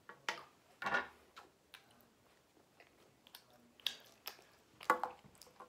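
A child chewing and biting chocolate from a chocolate surprise egg: a few short, scattered crunches and clicks.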